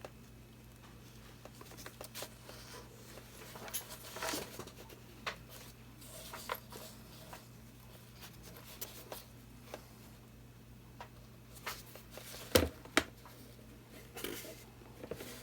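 Quiet handling noises on a work table: scattered light taps and clicks, with two sharper clicks close together about three-quarters of the way through, over a steady low hum.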